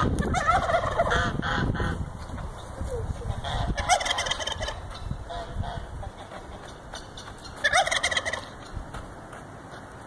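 Domestic turkeys gobbling several times, short rapid rattling calls, loudest at the start and again near eight seconds in.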